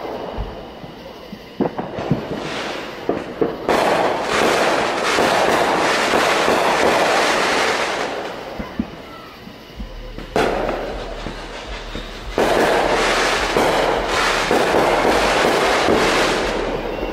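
Fireworks going off: a handful of sharp pops and bangs, and two long stretches of dense crackling hiss that each last about four seconds.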